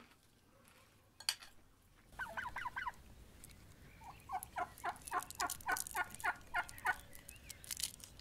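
Farmyard fowl calling: a short rattling call of quick pulses, then a long run of evenly repeated calls, about four a second. A single sharp click comes just before, about a second in.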